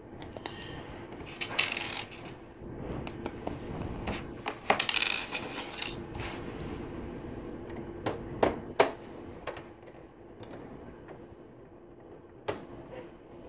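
Plastic LEGO Technic pieces being handled: two bursts of clattering, as of loose parts being rummaged through, then a few separate sharp clicks as pieces are pushed together.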